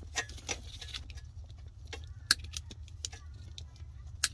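Wire cutters snipping through the old stereo's wiring harness: a series of sharp clicks at uneven intervals, over a steady low rumble.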